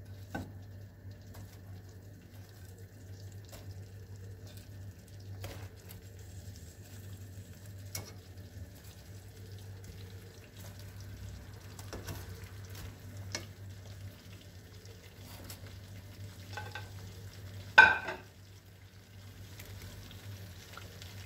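Tomato sauce sizzling faintly in a pot on the hob as fried tuna-and-cauliflower balls are set into it with metal tongs, which click every few seconds. One loud sharp clack near the end.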